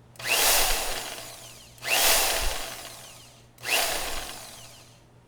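Bauer 10 amp variable-speed portable band saw switched on three times in quick succession, each run starting sharply and winding down over about a second and a half with a falling pitch. It has a slight gearbox growl as it slows, which the owner says it had when brand new, now that the gearbox is packed with grease.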